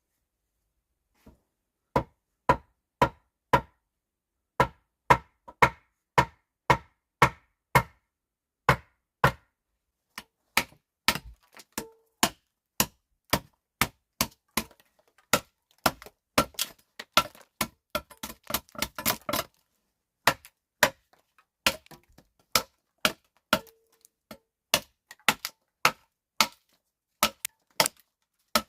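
Repeated sharp blows of a tool on wood, chopping-like. They come about two a second at first, then faster and more bunched in the middle, and settle back to a steady pace near the end.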